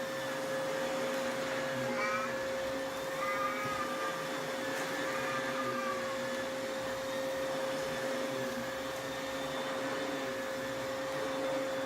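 Household vacuum cleaner running steadily with a constant motor whine. A few short high-pitched cries sound over it in the first half.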